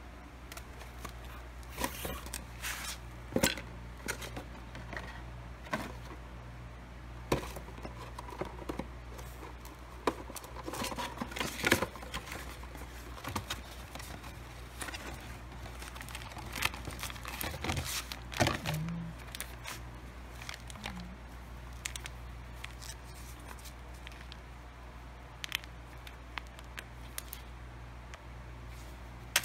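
Cardboard parts box being opened and a plastic packet of grease crinkling in the hand: irregular scrapes, clicks and crackles over a steady low hum.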